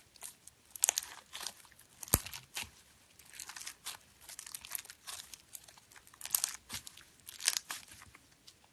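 Slime being squeezed and poked, giving irregular bursts of crinkly crackling and popping, with one sharp click about two seconds in.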